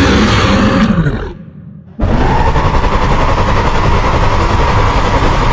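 Destoroyah monster sound effects: a roar falling in pitch that ends about a second and a half in, then after a short gap a loud, steady rushing rumble with a held tone that starts about two seconds in and keeps going.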